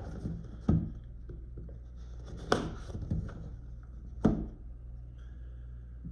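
Handling noises from a box: three sharp knocks about two seconds apart, with light rubbing and scraping between them, over a steady low hum.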